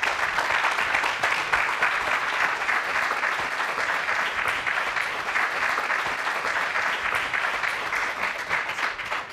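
Audience applauding steadily, a dense mass of clapping hands.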